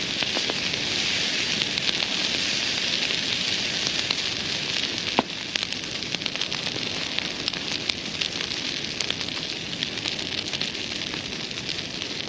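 Wood bonfire burning hard under forced combustion: a steady hiss with many small crackles and pops. A sharper pop comes about five seconds in, after which the hiss is a little quieter.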